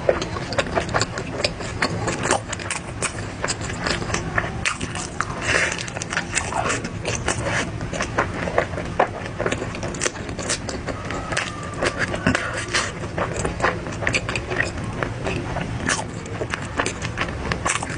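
Close-up eating sounds: rapid, irregular crunching and chewing clicks, over a steady low hum.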